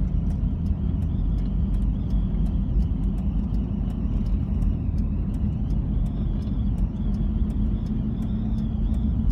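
Steady low rumble of engine and tyre noise heard from inside a moving vehicle's cabin on a country road, with light, regular ticking over it.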